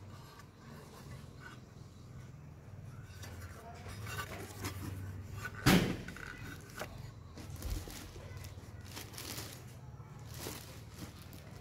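Handling noises from unboxing a belt and disc sander: a single sharp knock about halfway in as a metal tool-rest bracket is set down, then short bursts of cardboard box flaps and plastic wrapping rustling.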